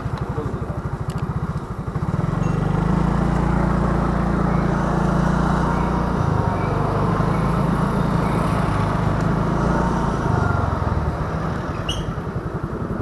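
Motor scooter engine idling with a quick pulsing beat, then rising in revs about two seconds in as the scooter pulls away and running steadily under way. The engine eases back near the end.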